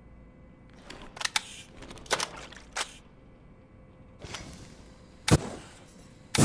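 A few sharp clicks and knocks spread over several seconds, the loudest about a second before the end. A loud, steady rushing blast of a flamethrower starts right at the very end.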